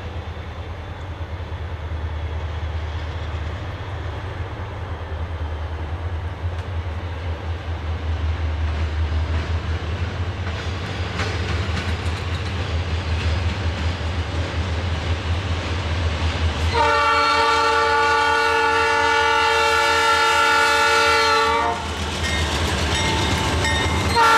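Diesel freight locomotives approaching with a steady low engine rumble that slowly grows louder. About two-thirds of the way through, the lead locomotive's air horn sounds one long chord of several tones for about five seconds. It sounds again just before the end as the locomotives pass close by.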